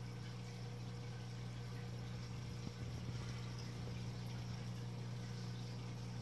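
Aquarium filter and pump running: a steady low motor hum under a constant hiss of moving water.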